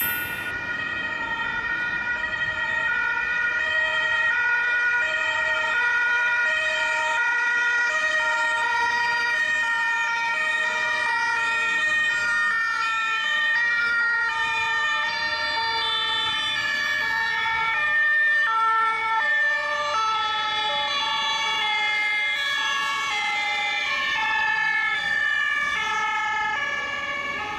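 Two-tone sirens of several German ambulances sounding at once, each stepping back and forth between a high and a low pitch, slightly out of step with one another.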